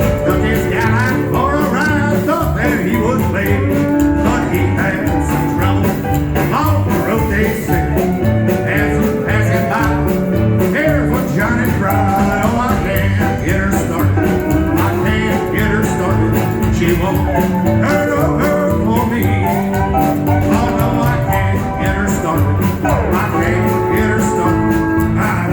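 Live band playing a song with a steady beat.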